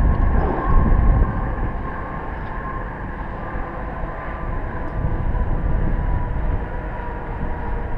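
Wind rumbling and buffeting on the microphone high on an open tower, with a faint steady hum underneath.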